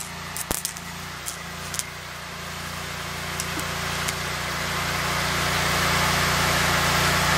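Stick-welding arc crackling and sizzling as a rod is struck and run. It starts with a few clicks, grows steadily louder and cuts off suddenly near the end when the arc is broken. A welding machine hums steadily underneath throughout.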